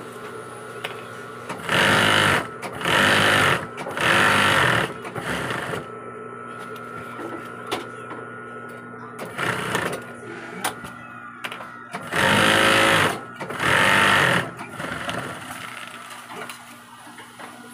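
Industrial sewing machine stitching in short fast runs, six in all, with a steady hum between them.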